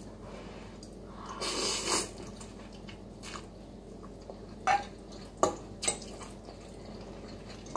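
Close-up mukbang eating sounds: a short breathy rush of air about a second and a half in, then a few scattered soft clicks and wet smacks from a spoon and fork in a ceramic bowl and from chewing noodles and fish dumplings.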